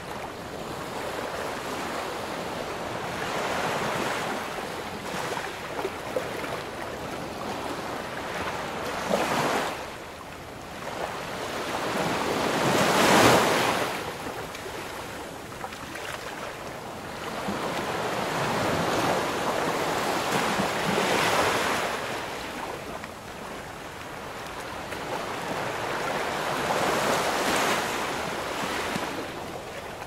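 Ocean surf: a rushing hiss of waves breaking and washing in, swelling and fading several times, the biggest wave a little under halfway through.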